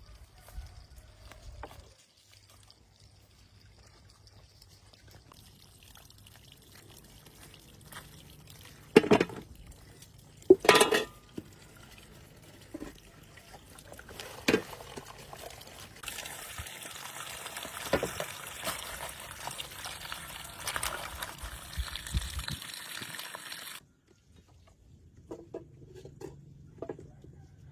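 Water pouring and trickling, with a few sharp knocks from handling, the loudest about nine and eleven seconds in. A steady rush of water starts about sixteen seconds in and cuts off suddenly near the end.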